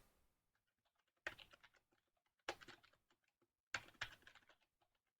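Computer keyboard keystrokes: a few sharp, isolated clicks roughly a second apart, each trailing off into faint hiss.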